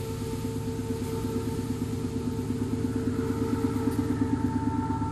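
Locomotive of a passenger train working up a grade, a steady mechanical rumble with a few held tones, slowly growing louder as it approaches.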